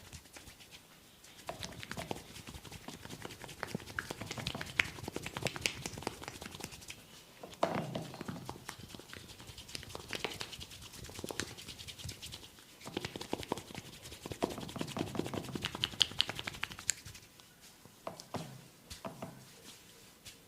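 Hands massaging a head, fingers rubbing and scratching through the hair and scalp with a dense crackling, in uneven stretches broken by short pauses.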